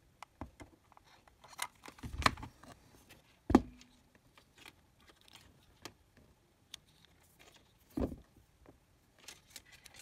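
Handling noises of a small circuit board, its cable and tools on the TV's metal back panel: scattered light clicks and taps, with three louder knocks about two, three and a half and eight seconds in, the middle one ringing briefly.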